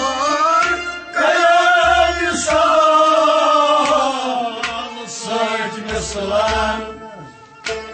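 Devotional music: a man sings a long, wavering, ornamented melody, accompanied by repeated low drum strokes. The singing dips quieter for a moment near the end.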